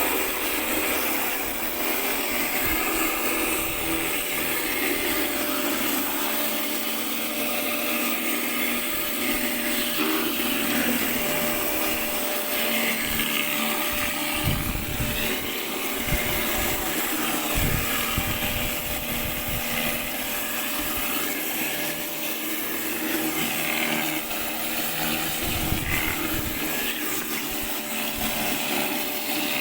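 Pressure washer running steadily as it sprays, a constant mechanical drone with a steady hum and a few scattered thumps.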